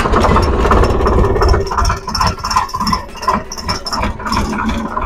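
Diesel tractor engine running as the tractor drags a rear-mounted cotton-stalk uprooting bar through the cotton plants, with rattling and clicking from the implement and stalks.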